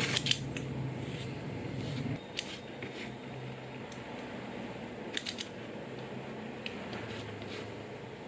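Craft knife blade cutting through leather on a cutting mat: short scratchy cuts and clicks, sharpest right at the start, with a steady low hum underneath.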